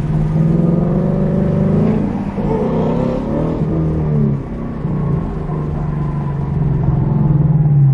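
2018 Ford Mustang GT's 5.0 V8 with a straight-piped exhaust (no mufflers, X-pipe), heard from inside the cabin while driving: a loud, steady exhaust drone whose pitch rises and falls a few times near the middle, then settles steady again.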